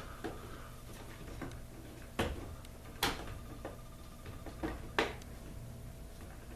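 Irregular sharp clicks and taps, three louder ones about two, three and five seconds in, as the garage door opener's logic board and its wiring are pushed and handled back into the opener housing, over a faint steady hum.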